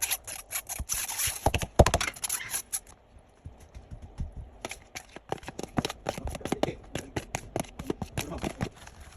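A spoon scraping and knocking against a bowl while cooked tapioca pearls are stirred into a creamy mixture, in an irregular run of clicks and scrapes with a louder knock about two seconds in.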